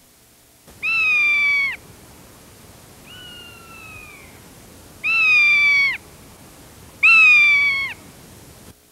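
A bird of prey calling: four long, clear screams, each held about a second and dropping in pitch at the end, the second one quieter and sliding down throughout.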